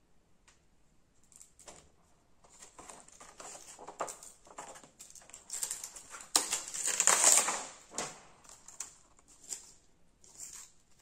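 Plastic film and paper packing crinkling and rustling in the hands as it is pulled off, in irregular crackles that grow loudest for about a second and a half a little past the middle.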